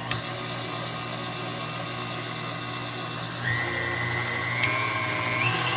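KitchenAid Classic stand mixer running at its low "Stir" speed, a steady motor hum. About three and a half seconds in, a higher whine comes in, and it steps up in pitch near the end.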